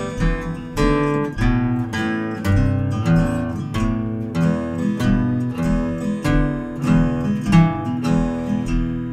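Taylor cutaway steel-string acoustic guitar played fingerstyle, a picked melody over a steady bass note about twice a second.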